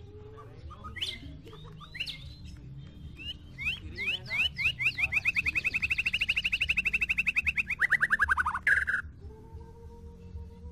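White-rumped shama singing: a few sharp chirps, then a long fast trill of rapidly repeated notes, about ten a second, lasting around five seconds and dropping in pitch at the end, followed by a low steady note.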